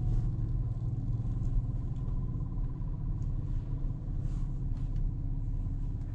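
Low, steady rumble of a vehicle's engine and tyres heard from inside the cab as it rolls slowly along.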